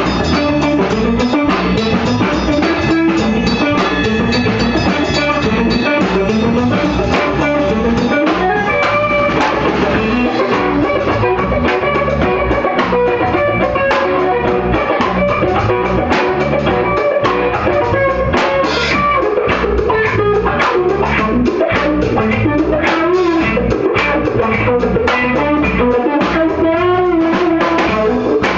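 A live rock band jamming, with electric guitar and a drum kit played loud together in a small room, the drums keeping a steady beat under the guitar.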